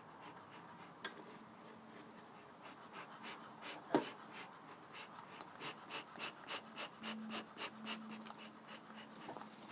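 Bee smoker's bellows pumped in a quick run of short air puffs, about three a second, fanning burning paper on top of the pine straw fuel. A single sharp knock comes about four seconds in, before the pumping.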